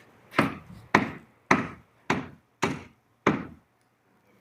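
Six evenly spaced knocks, a little under two a second.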